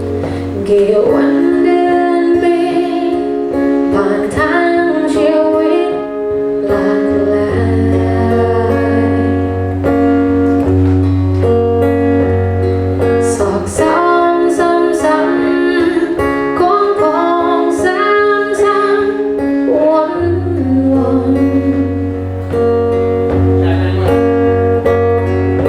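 Live band playing a song with acoustic guitar, a steady bass line and singing, arranged in a Thai phleng phuea chiwit (songs-for-life) folk-rock style.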